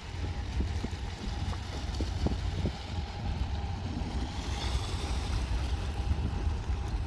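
Wind buffeting the microphone, a fluctuating low rumble under a steady outdoor hiss.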